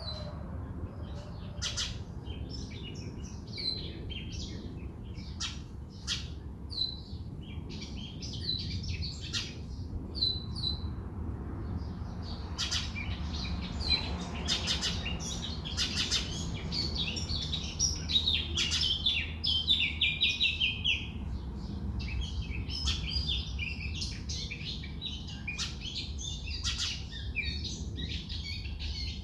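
Several wild birds chirping and calling in many short, high notes, with a louder fast run of notes falling slightly in pitch about two-thirds of the way through, over a steady low rumble.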